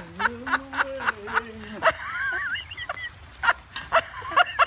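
A man's voice holds one long sung note for nearly two seconds, stepping up slightly and then falling away. Someone else laughs repeatedly in quick, short giggles throughout, with a squealing laugh a couple of seconds in.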